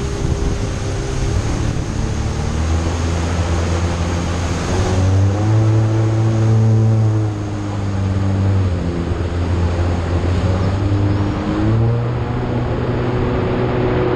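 Jet ski engine running under way on the water, its pitch rising about five seconds in, dropping a couple of seconds later, and rising again near the end as the throttle is worked. A steady rushing noise of water and spray runs beneath it.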